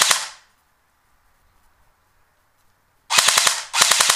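D-Boys KAC PDW electric airsoft gun firing short full-auto bursts of rapid, evenly spaced shots: one burst at the start, then two more close together about three seconds in.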